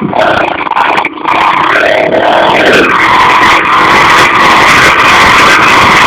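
Loud vehicle engine running under way. Its pitch shifts about two to three seconds in, then holds steady.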